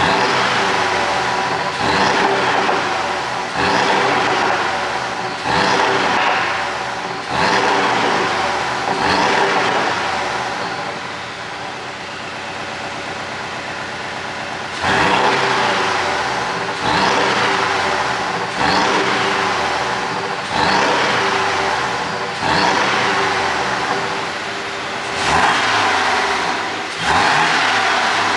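Porsche 718 Boxster S's 2.5-litre turbocharged flat-four being blipped repeatedly, about every two seconds, each rev falling back with exhaust popping and burbling on the overrun. It settles to a steady idle for a few seconds in the middle.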